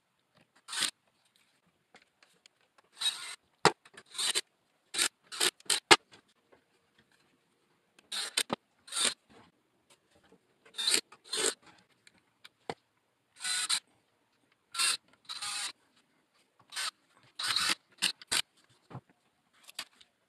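Short, separate bursts of wood and metal scraping and rubbing, with a few sharp clicks, as wooden cabinet drawers, doors and brass hinges are handled and fitted.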